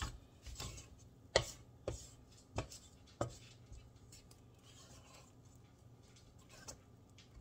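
A spatula scraping buttercream frosting down the sides of a mixing bowl, with five sharp knocks in the first three and a half seconds, then softer scraping.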